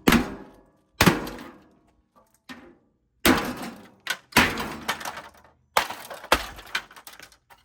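A gutted Hamilton Beach microwave being smashed: about six heavy blows with a few lighter knocks between, each a crash of metal and broken parts clattering and dying away over about a second.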